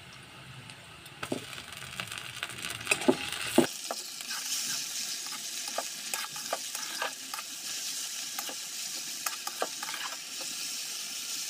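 Sliced onions frying in hot oil in a metal kadai, sizzling, while a metal spatula scrapes and clicks against the pan as they are stirred. The sizzle gets louder about four seconds in.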